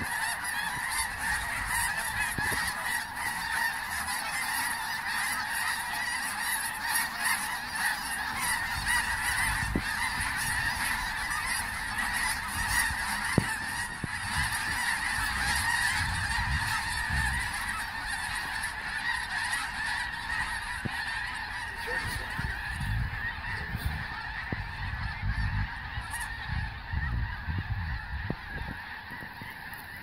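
A huge flock of snow geese calling overhead: a dense, unbroken clamour of overlapping honks that eases a little in the last few seconds. Irregular low rumbles of wind on the microphone come in over the second half.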